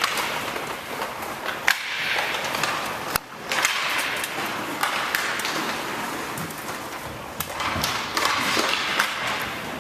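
Inline skate wheels rolling on the rink floor during a roller hockey game, a steady hiss that swells and fades with the skating, broken by sharp clacks of sticks and impacts several times.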